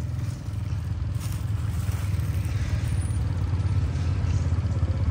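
ATV engine running under load with a steady low rumble, its loudness slowly building.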